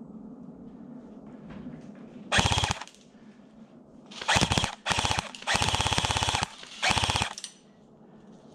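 Airsoft gun firing on full auto in five short bursts of rapid, evenly spaced shots. The fourth burst is the longest, about a second.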